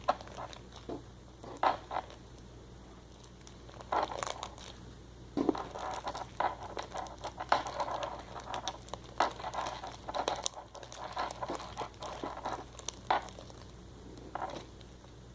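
Overactivated slime with lotion and water worked into it, being kneaded and squished by hand: irregular sticky clicks and crackles, busiest in the middle stretch.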